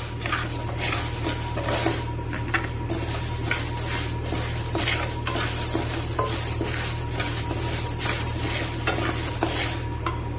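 A wooden spatula stirring and scraping dry urad dal around a metal kadai, the grains rustling and rattling against the pan in repeated strokes as the dal is dry-roasted on a low flame. A steady low hum runs underneath.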